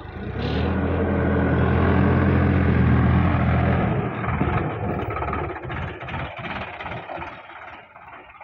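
Sonalika DI-50 RX tractor's diesel engine running loud and steady under load as it climbs from the field over the road edge close by. After about four seconds the sound turns uneven, with knocks and rattles, and fades somewhat.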